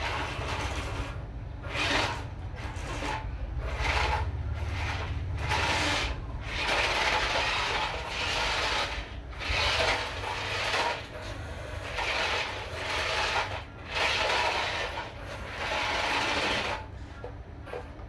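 Electric motor and gearbox of a toy remote-control dump truck running in irregular bursts of one to three seconds each, starting and stopping as the truck is driven.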